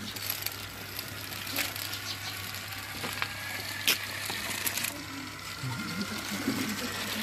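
Small battery-powered motor of a homemade toy tractor switched on and running steadily. Its wheels and dragged cultivator tines scrape over gravel, with a few sharp clicks, the loudest about four seconds in.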